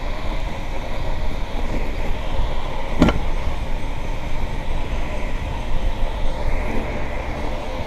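Powerslide Kronos Reign three-wheel inline hockey skates rolling over pavement: a steady rumble of the wheels, with one sharp clack about three seconds in.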